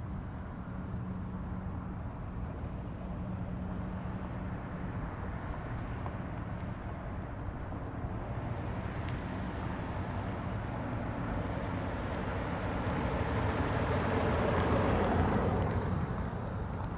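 Distant highway traffic: a steady wash of tyre and engine rumble. One vehicle grows louder and passes at about 15 seconds, then fades. A faint high-pitched chirping repeats through the first part.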